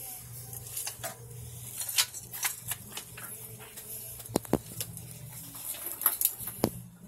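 Scattered sharp clicks and light knocks at irregular moments, the loudest about two, four and a half and six seconds in, over a steady low hum.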